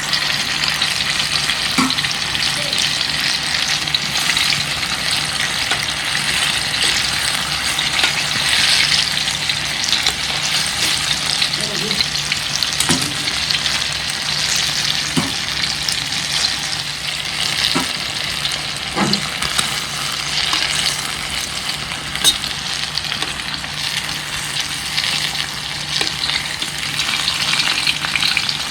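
Banana fritters deep-frying in hot oil: a steady crackling sizzle, with a low steady hum underneath.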